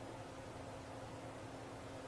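Faint steady hiss with a low, even hum: room tone.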